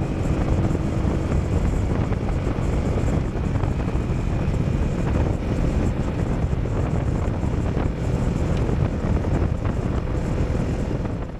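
Motorcycle engine running steadily while riding at road speed, with wind rushing over the action camera's microphone.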